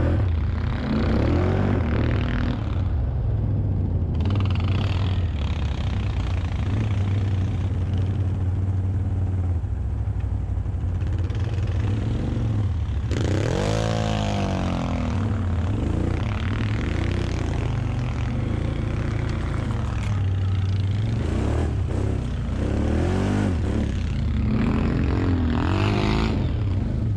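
ATV engine running at low speed. From about halfway through it is revved up and down sharply several times.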